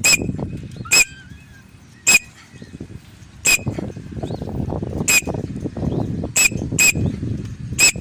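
White cockatiel giving short, high contact calls, about eight in all at uneven intervals of roughly a second, over a low rustling noise.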